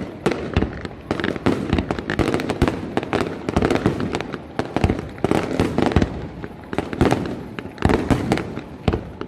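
Fireworks going off in a dense barrage of bangs, several a second, with no let-up.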